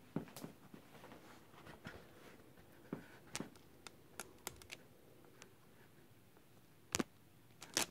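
Handling noise: a cloth cap and fingers brushing and tapping against the recording device, giving faint scattered clicks and rustles, with a louder pair of knocks about seven seconds in and again at the very end.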